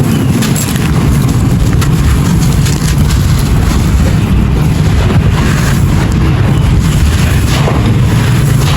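Dry clay pot material being crushed and crumbled, close to the microphone: a dense, continuous gritty crunching and crackling with a heavy low rumble.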